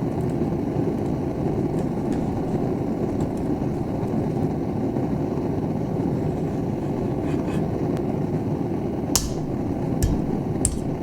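Steady roar of a running forge, with one sharp crack about nine seconds in and a few smaller clicks after it: a bang snap firecracker going off against the hot blade.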